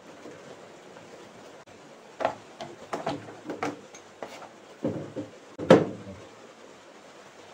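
Plastic control-panel housing of a Samsung WA80V4 top-loading washing machine clicking and knocking as it is pried loose with a screwdriver and lifted off its clips. A run of sharp clicks starts about two seconds in, and the loudest knock comes near the end.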